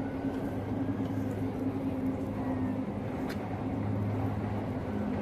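Steady low mechanical hum with a couple of held tones, like a motor running, and a short faint click a little past the middle.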